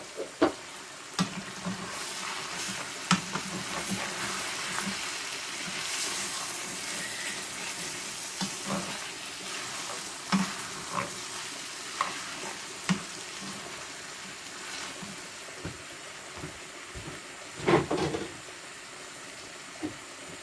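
Beef, vegetables and chopped tomatoes sizzling in a stainless steel saucepan, stirred with a wooden spoon that knocks and scrapes against the pan now and then, loudest a little before the end.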